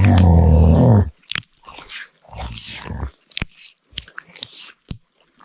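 A loud, deep creature growl for about a second, then a run of crunching, chewing bites: Bigfoot-style creatures biting into pork ribs.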